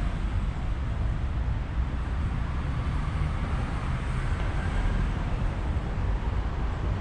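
Steady outdoor background rumble and hiss with no breaks, strongest in the low end.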